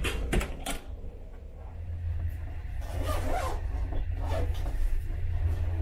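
Steady low drone of the ferry's engines, with a few short clicks in the first second and several brief rustling sounds over it from about three seconds in.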